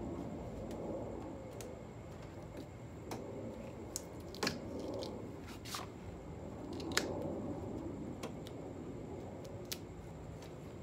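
Hands fitting a wing stabilizer onto a car's rear wing upright: rustling handling noise with scattered small clicks, the sharpest about four and a half and seven seconds in.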